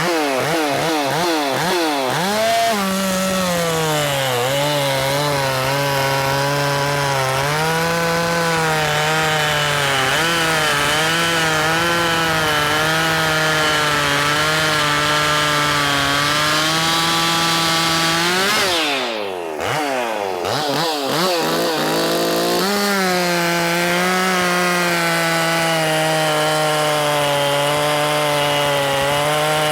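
Ported Makita 5600 two-stroke chainsaw at full throttle cutting wood, its engine note wavering under load. About two-thirds of the way in, the pitch sweeps up and falls away briefly as the chain comes free, then the saw settles back into a second cut.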